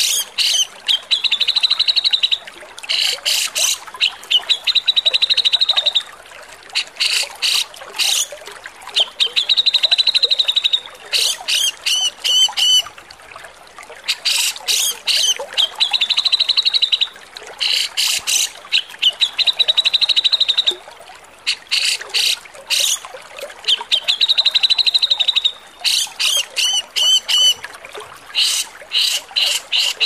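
Cucak jenggot (grey-cheeked bulbul) calling harshly: repeated rough, rattling chatter bursts alternating with fast, high trills about a second and a half long, over and over.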